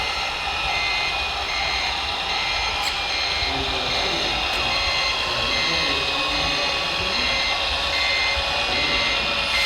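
Reversing beeper of a radio-controlled model construction vehicle, sounding steadily at about one and a half beeps a second over the steady running noise of the model's drive.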